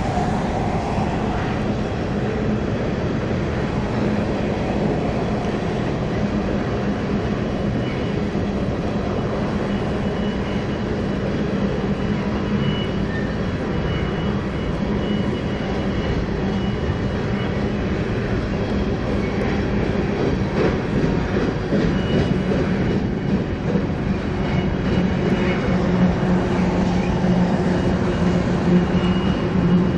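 Two BNSF diesel-electric locomotives at the rear of a loaded coal train rolling past at a steady pace: a steady low engine hum over continuous rail and wheel noise, with a faint high tone coming and going. It grows a little louder near the end as the locomotives cross a steel truss bridge.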